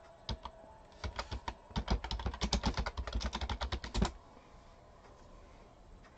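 Typing on a computer keyboard: a quick run of keystrokes that stops about four seconds in.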